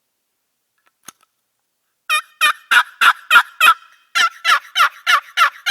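Wooden turkey box call (Knight & Hale Switchblade) with a freshly swapped lid, its paddle scraped to give hen turkey yelps. Two runs of about six short, loud, raspy notes with a short pause between them, beginning about two seconds in after a faint click.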